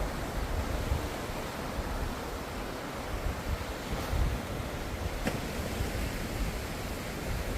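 Ocean surf: a steady rush of breaking waves, with a low rumble that swells and eases every second or so.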